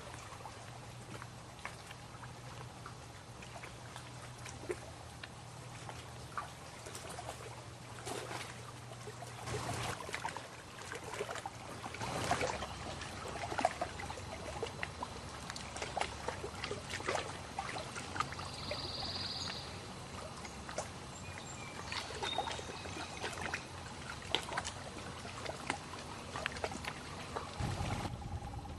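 Lake water lapping and splashing against the shore in small, irregular wavelets, with a patter of little drips and splashes. A brief high tone, a short chirp, comes about two-thirds of the way in.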